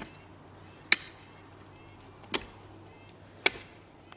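Four sharp strikes, roughly one a second, each with a short ring: tool blows during construction work.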